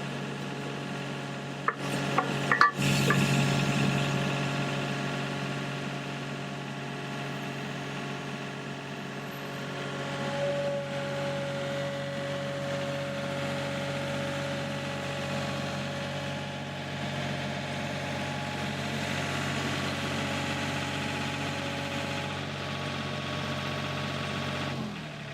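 Sany SY35U mini excavator's diesel engine running steadily, with a few sharp knocks about two seconds in and a steady hydraulic whine from about ten seconds in until a few seconds before the end.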